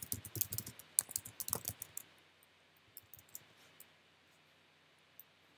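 Typing on a computer keyboard: a quick run of keystrokes for about two seconds, then a few scattered clicks.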